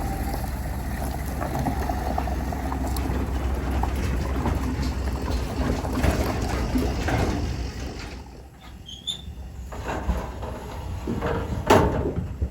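A vehicle engine runs steadily with a low rumble. About eight seconds in the rumble drops away, and a few clanks and knocks follow near the end.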